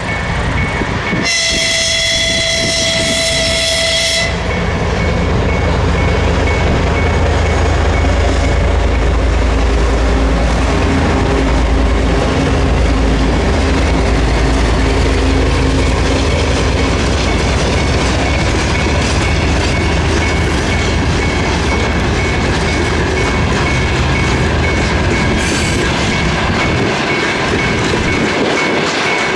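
A freight locomotive blows its horn once for about three seconds, then the locomotive and its freight wagons rumble past over the rails with a heavy, steady low rumble. A level-crossing warning signal beeps on and off throughout.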